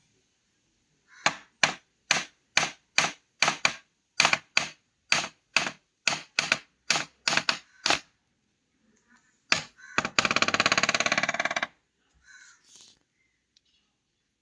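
Stiff, rusted laptop hinges creaking and cracking as the lid is worked: a run of short, sharp creaks at two to three a second, then one longer, rapidly clicking creak about ten seconds in. The hinges still creak despite cleaning and WD-40.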